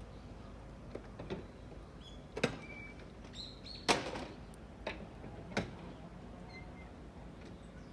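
Footsteps on a paved path, a few of them sharp clicks spread about a second apart, over a steady faint outdoor hiss. A few short, faint bird chirps come in the middle.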